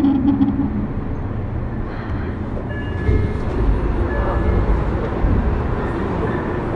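Tokyo Metro 03 series chopper-control electric train running on the Hibiya Line, heard aboard the motor car. A steady hum fades out within the first second, leaving the rumble of wheels on track, which grows heavier in the middle, with a few brief faint high tones.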